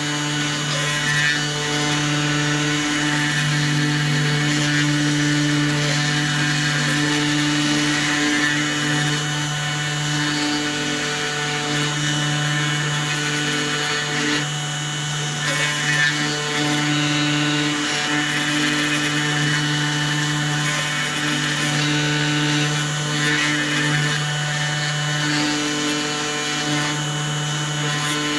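Mini CNC 2535 router milling wood: the spindle runs steadily with the engraving bit cutting, over a low motor hum whose tones break off and return every one to three seconds as the machine moves. These are the first passes, which still cut correctly before the bit's height later goes wrong.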